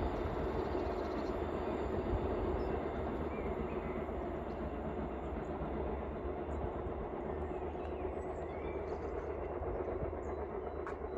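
Steady rumble of a train running on the line.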